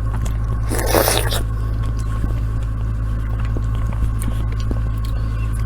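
Faint chewing and mouth clicks while eating jaboticaba (tree grapes), over a steady low hum. A short breathy hiss comes about a second in.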